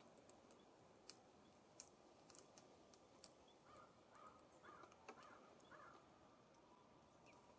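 Faint, scattered sharp clicks and taps from birds working at a wire suet feeder, with a few soft, short bird call notes in the middle.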